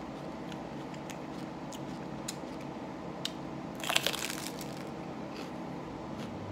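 A crunchy bite into a raw jalapeño pepper, a single loud crunch about four seconds in.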